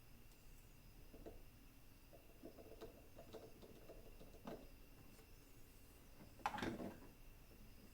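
Faint scattered clicks and ticks over quiet room tone, with one louder knock about six and a half seconds in.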